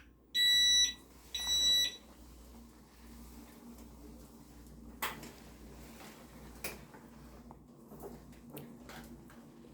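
Two electronic beeps, each about half a second long and a second apart, followed by a faint steady low hum with a few light clicks.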